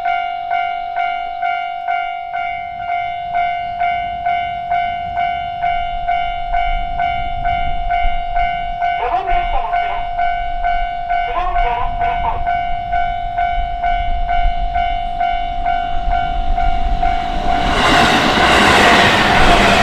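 Japanese level crossing's electronic warning bell ringing steadily, about two strokes a second. An approaching train's rumble builds under it, and near the end the train rushes past loudly through the crossing.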